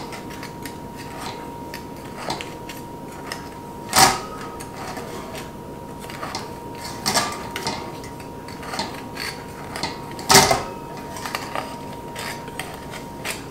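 A butter knife scraping and clicking against the fluted rim of a metal torte pan as it is worked around the edge to loosen a baked cake, with two louder ringing metal clinks about 4 seconds and 10 seconds in.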